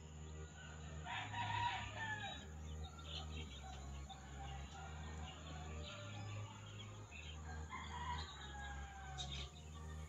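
A rooster crowing twice, about a second in and again about eight seconds in, with other birds calling faintly, over background music of low, stepping bass notes.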